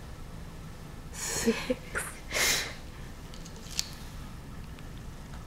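Three short breathy nasal huffs in quick succession, beginning about a second in, followed by a faint click.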